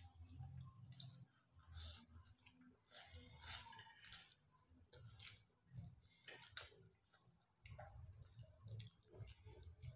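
Faint close-up eating sounds: spaghetti being slurped and chewed, with scattered small clicks and smacks of forks on plates.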